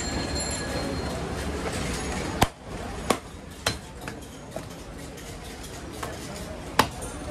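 A heavy butcher's cleaver chopping goat ribs on a wooden log block: about six sharp chops at uneven intervals, starting about two and a half seconds in, the first the loudest.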